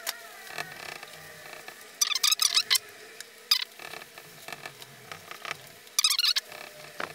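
Sponge scrubbing toothpaste across a white surface, sped up, so the rubbing comes out as high squeaky chattering. There are two short loud bursts, about two seconds in and again about six seconds in, with softer scattered scrapes between them.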